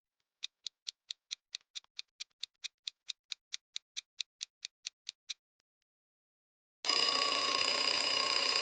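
Countdown-timer sound effect: a clock ticking evenly, nearly five ticks a second, for about five seconds. After a short gap, about seven seconds in, a louder steady, hissy sound effect with held tones starts.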